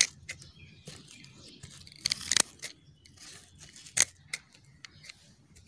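Pruning shears snipping through rotten adenium roots: a few sharp, short snips, the loudest about two seconds in and again about four seconds in, with light rustling of the dry root fibres between them.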